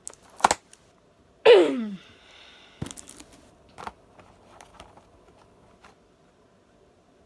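Cardboard and plastic packaging of a skincare set being handled and opened: scattered clicks and taps, with one loud short sound falling in pitch about a second and a half in.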